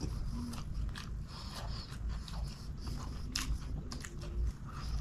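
A man chewing a mouthful of chicken biryani by hand, close to the microphone: many small wet clicks and smacks of the mouth, with his fingers working through the rice on the plate.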